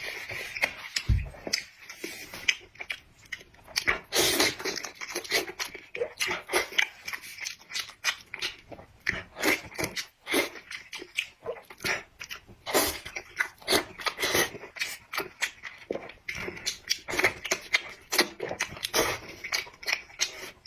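A person biting and chewing food, a dense, irregular run of short wet clicks and crunches.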